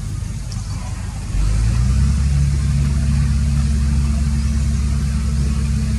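A motor engine running with a low, steady hum that gets louder and fuller about a second and a half in, like an idling engine picking up.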